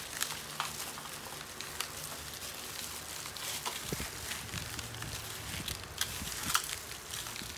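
Plastic wrapping and disposable plastic gloves crinkling and rustling with many small crackles as hands squeeze and roll a sushi roll tight inside the plastic.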